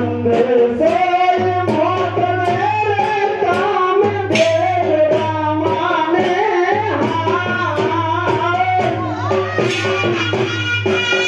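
Traditional Gujarati folk music for a Maniyaro raas: a voice singing a winding melody over drum and percussion accompaniment.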